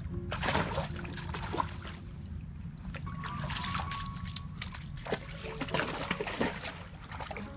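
A flat-coated retriever wading in a shallow creek, its legs splashing and sloshing the water several times, over the steady trickle of the running stream.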